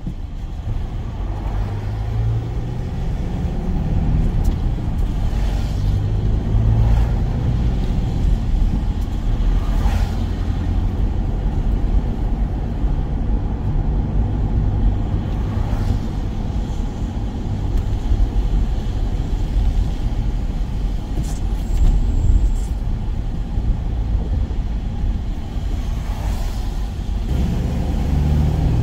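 Van engine and road noise while driving: a steady low rumble.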